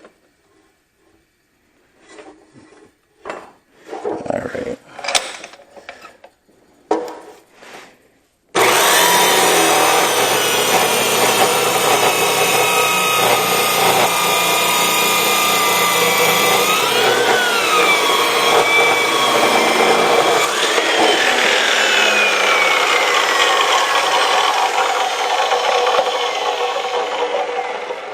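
A few seconds of knocks and clatter, then a chop saw starts and cuts through steel stock for about 18 s, its pitch dipping and rising as it bites. It winds down with a falling tone near the end.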